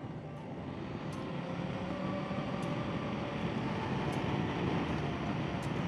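Motorcycle engine pulling away and accelerating, its note rising as the sound grows steadily louder, mixed with wind rush. A faint tick sounds about every second and a half.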